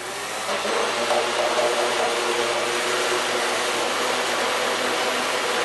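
Countertop blender running, mixing powdered fabric dye into a solution: the motor comes up to speed over the first second, then runs steadily.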